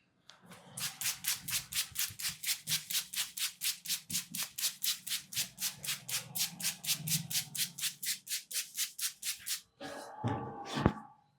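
A barber's hands rubbing briskly over a customer's hair and scalp in an Indian head massage: a fast, even run of dry swishes, about five a second. The run stops shortly before the end, followed by a brief rougher rubbing and a single sharp crack.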